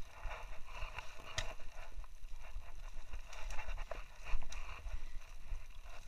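Footsteps scuffing over rocks and dry ground while brush scrapes against the walker, irregular clicks and scrapes with no steady rhythm, over a low rumble of handling on the microphone.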